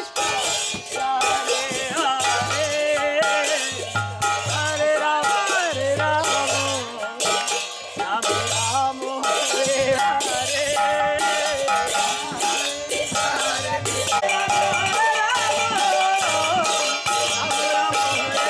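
Devotional kirtan music: brass kartals (hand cymbals) clashing in a quick steady rhythm, with deep strokes of a clay mridanga (khol) drum falling in short groups, under a group of voices chanting.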